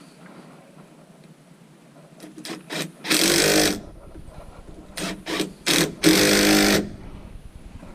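Cordless drill/driver driving screws: a few short trigger blips, then two runs of under a second each, about three and six seconds in.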